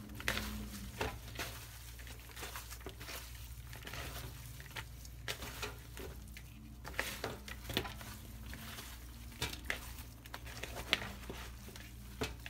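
Bare hands tossing and squeezing thin slices of raw beef in a wet marinade in a bowl: irregular soft squishes, slaps and clicks, over a steady low hum.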